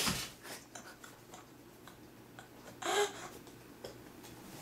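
Faint scattered clicks and taps of small objects being handled, with one short vocal sound about three seconds in.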